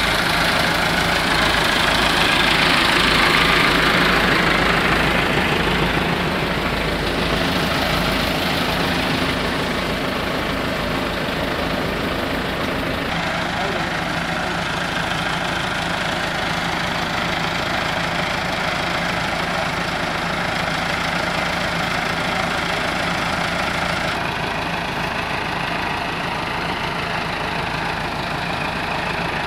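Massey Ferguson 385 tractor's diesel engine running steadily at a standstill, louder for the first few seconds.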